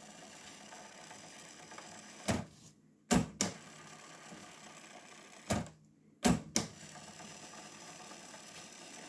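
Transport keys of a 1979 Sansui SC-3300 cassette deck being pressed: sharp mechanical clicks, mostly in close pairs, about six in all. Between the presses there is a faint steady hiss, cut off briefly twice.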